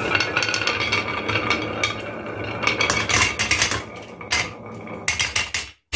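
Glass marbles rolling down the serpentine grooves of wooden HABA wave-slope marble run boards: a continuous wooden rolling rumble full of quick clicks as the marbles knock against each other and the groove walls. From about three seconds in the clacks come sharper and more separate, and the sound cuts out briefly just before the end.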